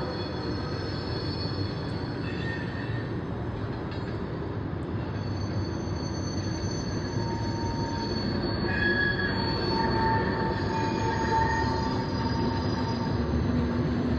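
Loaded coal train rolling by, steel wheels on rail making a steady rumble. Thin squealing tones rise over it about seven seconds in and die away a few seconds later.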